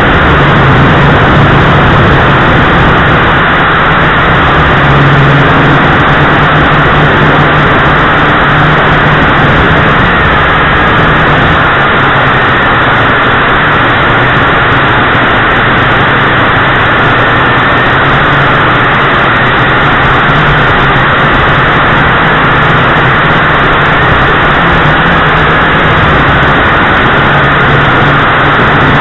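JJRC H8C quadcopter's four motors and propellers buzzing steadily in flight, picked up loud and harsh by the quad's own onboard camera microphone, with a low hum that wavers slightly as the throttle changes.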